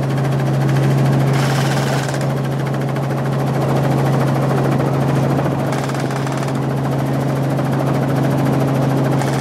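Helicopter cabin noise in flight: the rotor and engine make a steady, loud drone with a strong low hum, under a rushing hiss that swells and fades a few times.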